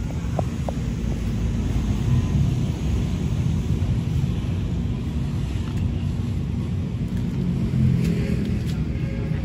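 Wind buffeting the microphone: a heavy, steady low rumble that swells in gusts.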